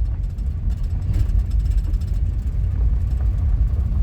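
Minivan driving along a road, heard from inside the cabin: a steady low rumble of engine and tyre noise.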